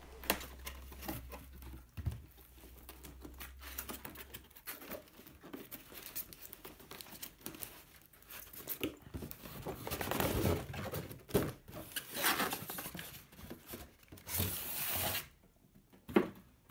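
Cardboard box being opened and unpacked by hand: tape and flaps tearing and scraping, card rustling and sliding, with scattered taps and knocks. Longer scraping rustles come about ten seconds in and again near the end, followed by a sharp knock.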